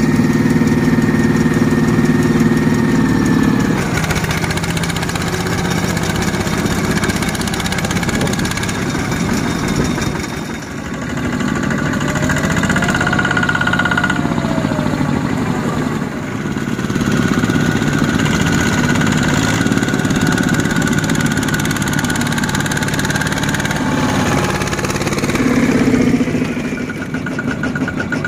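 Two-wheel walking tractor's single-cylinder diesel engine running steadily, its note changing a few times as the engine speed shifts.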